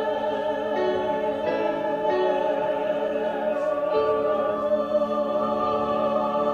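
Musical-theatre song music: long held notes with a slight waver and singing voices, with no words.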